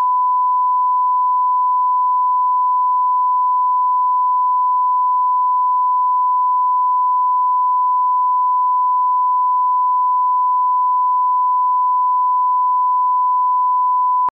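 Steady 1 kHz line-up test tone, the broadcast reference tone that runs with SMPTE colour bars, a single unwavering pure tone that cuts off suddenly at the end.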